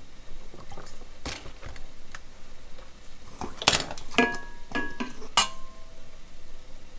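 Knocks and clinks against a stainless steel mixing bowl: a few soft taps, then a cluster of sharper knocks about halfway through, several leaving short metallic ringing tones.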